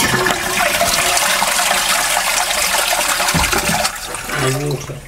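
A toilet being flushed: a loud rush of water through the pan and waste pipe, fading away near the end, with a knock about three and a half seconds in. It is a test flush to trace a leak into the floor.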